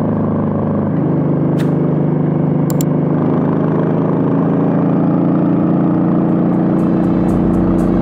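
Suzuki VL800 Volusia's 805 cc V-twin running under way, opening up about a second in and pulling with a slowly rising pitch. Two sharp clicks come in the first few seconds, and from about six seconds in a faint even ticking beat of music fades in.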